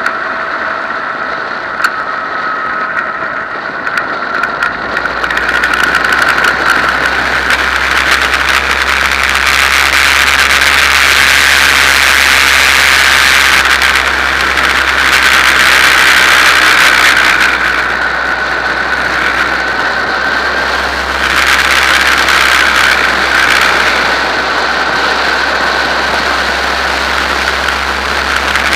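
Formula 2000 race car engine running steadily. It grows louder about five seconds in, then eases and swells again twice.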